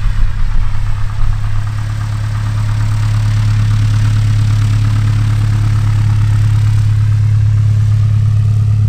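Cessna F172M Skyhawk's four-cylinder Lycoming piston engine and propeller running steadily at taxi power as the light aircraft rolls past and away, a steady low engine note.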